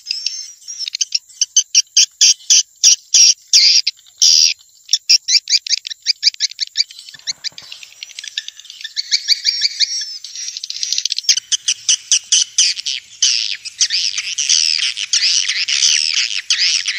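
Swiftlet calls of a swiftlet-house lure track: rapid trains of short clicking chirps, giving way about ten seconds in to dense, overlapping twittering.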